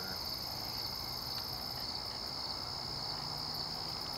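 Steady chorus of crickets, one continuous high trill that does not let up.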